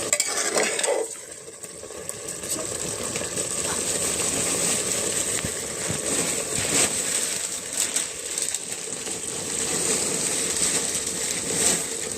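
Goat mutton sizzling as it fries in a pan, half browned. A spoon stirs and scrapes against the pan with scattered clinks.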